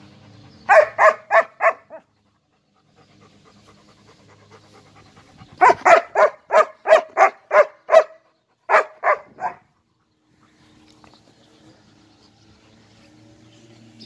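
German shepherd barking in three quick runs of sharp, evenly spaced barks, about three a second: a short run of four, a longer run of about eight a few seconds later, then three or four more.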